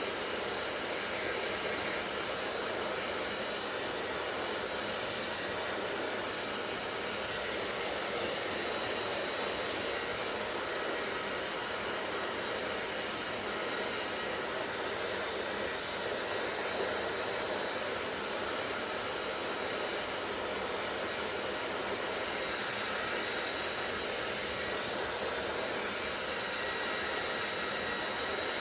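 Electric hair dryer running steadily: a constant rush of blown air with a faint high whine from its motor and fan.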